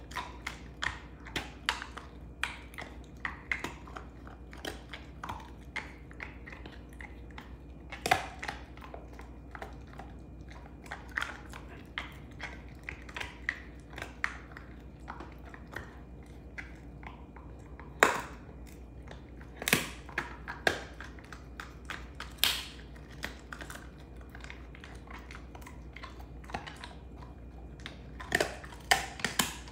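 Belgian Malinois gnawing on a beef rib bone: a steady, irregular run of crunches and clicks from the teeth on the bone, with a handful of louder cracks scattered through.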